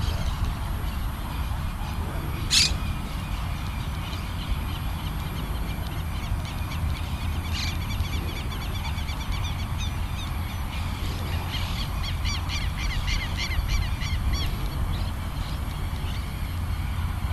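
Birds calling in long runs of quick, repeated arched notes, loudest in the second half, over a steady low rumble of wind on the microphone. A single sharp click comes a few seconds in.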